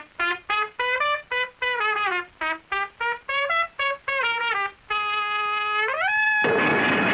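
A trumpet plays a rapid run of short staccato notes, then holds one long note that slides up in pitch. About six and a half seconds in it gives way to a loud, rough noise burst.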